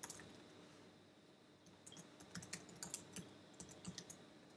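Faint typing on a computer keyboard: a quick, irregular run of key clicks that starts about a second and a half in.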